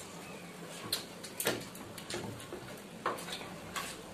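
Close-up eating sounds of people eating fried rice by hand: chewing and lip smacks, with fingers working rice on plates. A few sharp smacks stand out, the loudest about one and a half and three seconds in.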